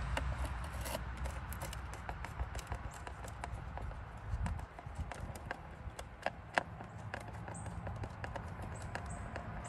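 Irregular small clicks and taps of hard plastic being handled as the top cover of a Minn Kota Endura C2 trolling motor head is screwed back down to its base. The sharpest click comes about six and a half seconds in.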